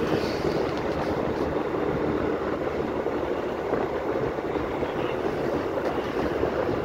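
Steady travelling noise from a moving road vehicle: engine hum and road noise, with wind rushing over the microphone.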